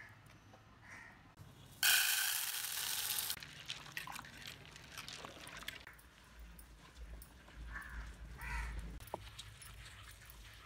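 Soaked chana dal being ground by hand on a flat stone slab: the stone muller scrapes and rumbles over the dal, with scattered small clicks. About two seconds in, a loud burst of hissing lasting about a second and a half is the loudest sound.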